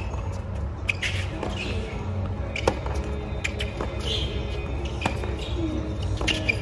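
Tennis ball struck back and forth with rackets in a rally, a sharp pop every second or two over a steady low hum.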